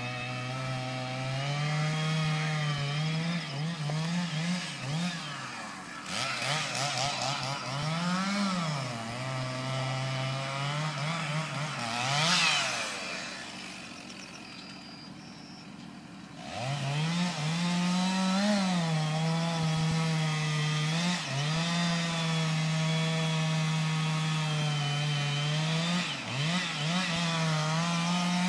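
Chainsaw running at high revs, its pitch rising and falling as it is worked through the trunk of a grand fir. About halfway through it drops quieter for a few seconds, then revs back up and runs steadily at full speed.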